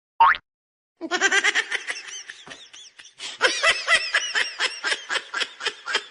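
A brief rising squeak, then high-pitched laughter: a fast run of short "ha" pulses, several a second, starting about a second in and going on to the end.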